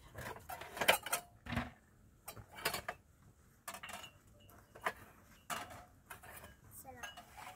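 A series of irregular knocks and clinks, about a dozen, spaced unevenly, as of hard objects being handled and set down.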